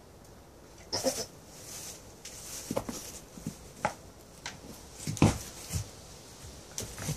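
Goats butting and jostling head to head in straw bedding: a handful of sharp knocks, the loudest about five seconds in, over rustling straw.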